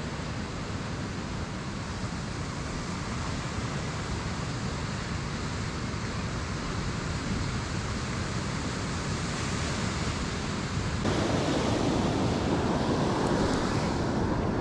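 Ocean surf washing onto the beach under a steady wind. About eleven seconds in it turns louder and rougher, with wind buffeting the microphone.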